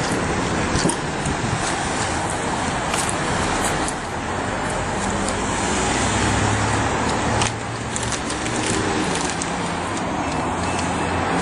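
Steady motor-vehicle and traffic noise with a few light clicks; a low steady hum comes in about six seconds in.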